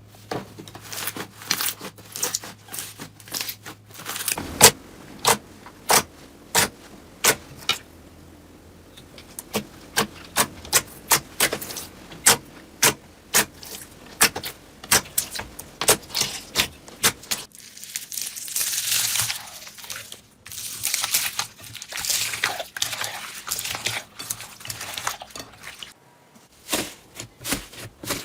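Sharp taps or clicks, about two a second through the middle, then several seconds of crinkling rustle, then more taps near the end.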